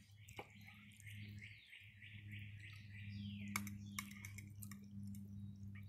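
A few faint sharp clicks of a metal fork against the bowl as noodles are forked up, over birds chirping steadily in the background and a low steady hum.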